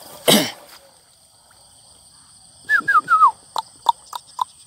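Loud chirping calls from a small animal close by: four quick calls falling in pitch about two and a half seconds in, then about five short, sharp pips, over a steady high insect drone. Just before them, near the start, comes one brief breathy burst like a cough.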